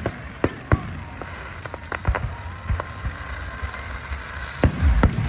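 Fireworks going off: sharp bangs and cracks at irregular intervals over a low rumble, getting louder and closer together near the end.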